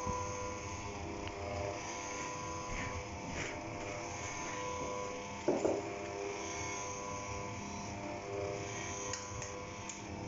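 Electric stand mixer motor running steadily with a buzzing hum, mixing softened butter into flour for a dough. A brief knock comes a little past halfway, and a few light clicks near the end.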